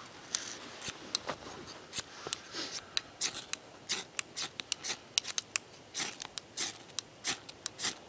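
Ferrocerium rod struck again and again with a steel striker: quick, sharp rasping scrapes at an irregular pace, a few drawn out a little longer. The strokes throw sparks onto a tinder bundle of wood shavings to light a fire.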